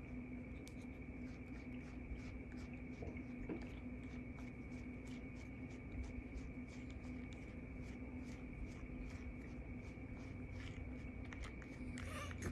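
A comb pulled through a long-haired cat's fur in repeated short scratchy strokes, about two a second, over a faint steady hum.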